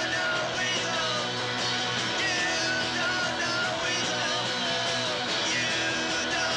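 Punk rock band playing: electric guitar, bass and drums, from a 1996 home-recorded demo cassette. The music runs steadily with no break.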